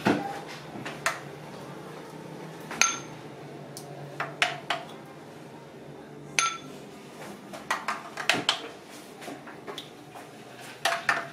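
A ladle clinking and knocking against a ceramic bowl and soup tureen as soup is ladled into the bowl: scattered sharp clinks, a few ringing briefly.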